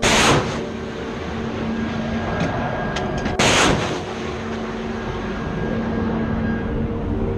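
Two missile launches from a warship's deck-mounted box launcher: a loud rushing blast right at the start and a second one about three and a half seconds later, each lasting about half a second.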